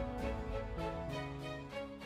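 Instrumental background music, a melody moving from note to note.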